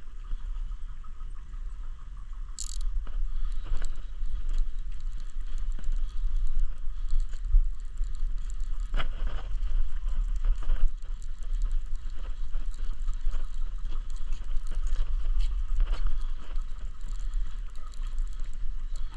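Fishing reels being cranked, with a ratcheting click repeating irregularly, over a steady low rumble.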